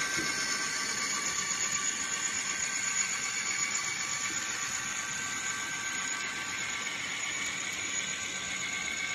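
Sound decoder of an N scale Bachmann Dash 8-40CW model locomotive playing a steady diesel engine sound through its small speaker, heard as the freight train runs past.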